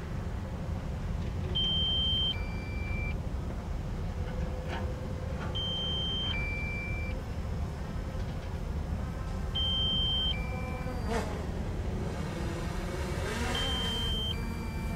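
Kobelco SK260LC excavator's diesel engine running with a steady low rumble as it digs, the engine note rising under hydraulic load in the last few seconds. A two-tone electronic warning alarm, a higher beep then a lower one, sounds about every four seconds.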